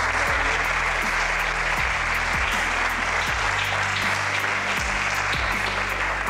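Audience applauding steadily, with background music playing underneath.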